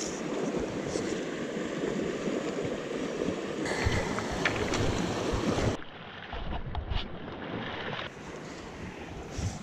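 Rushing shallow river riffle, with footsteps on loose river cobbles. About six seconds in the sound turns muffled and a few low splashing steps follow as the angler wades into the water.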